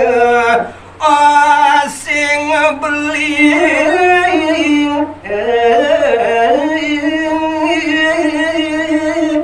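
A man singing unaccompanied into a microphone in Balinese tembang style, drawing out long ornamented notes with wavering pitch on a line of pupuh Sinom geguritan verse, with two short breaths between phrases. A faint steady electrical hum lies under the voice.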